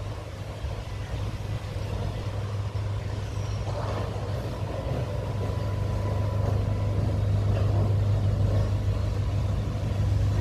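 Diesel train approaching: a steady low engine hum that grows steadily louder as it draws near.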